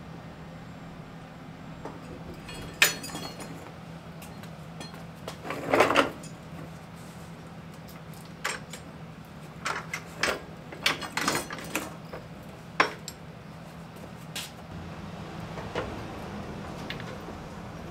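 Steel chain links clinking and metal clanking as an engine hung on chains is lowered onto a wooden dolly. Sharp clinks come scattered through, with one longer clatter about six seconds in and a cluster of clinks a few seconds later. A steady low hum runs underneath.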